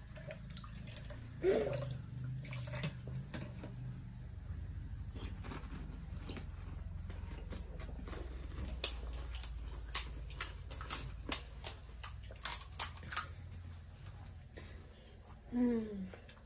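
Crisp cracks and crunches of puri shells being broken and eaten, with a quick run of sharp cracks in the middle. Crickets chirr steadily in the background.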